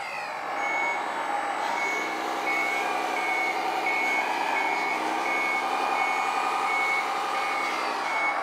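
Electronic sound module of a 1/12-scale RC T150K tractor playing a simulated diesel engine running, with a high reversing beeper repeating about every 0.6 s, the sign that the tractor is driving in reverse.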